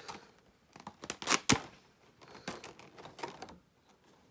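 Plastic and cardboard figure packaging being handled as a figure is slid out of its box: scattered rustling and small clicks, with a few sharp clicks about a second and a half in.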